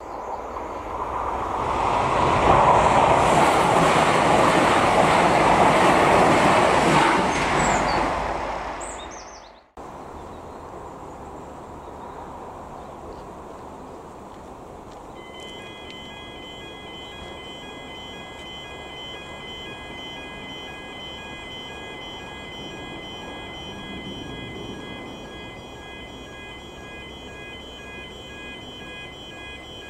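An Irish Rail 29000 class diesel multiple unit passes close by, a loud rushing rumble that swells and fades over about ten seconds before cutting off abruptly. About fifteen seconds in, the level crossing's electronic warning alarm starts sounding, a steady pulsing tone that signals the barriers are about to close for an approaching train.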